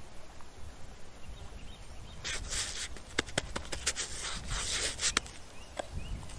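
Hands crumbling dried herbs over a raw lamb shoulder and rubbing them into the meat: a dry rustle about two seconds in, then a run of sharp crackling clicks with more rustling over the next two seconds.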